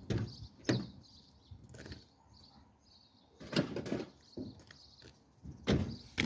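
Irregular knocks and clunks from parts being handled in a van's engine bay while the air-intake scoop is being unclipped for removal: single knocks early on, then two short clusters later.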